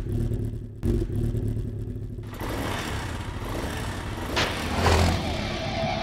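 Motorcycle engine sound effect: a low rumble that cuts in suddenly, surges once about a second in, then revs louder and harsher from about two seconds in.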